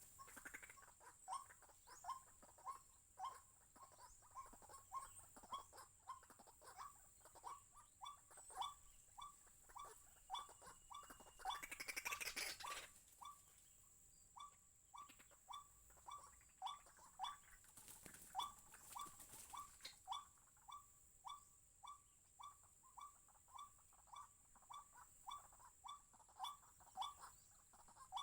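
White-breasted waterhen (ruak-ruak) call: a short falling note repeated steadily, about twice a second, faint. A steady high whine runs behind it, with a brief rustle about twelve seconds in.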